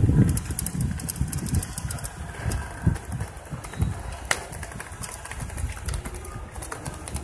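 Outdoor city background: a low, uneven rumble like distant traffic, louder for the first half-second, with faint scattered ticks.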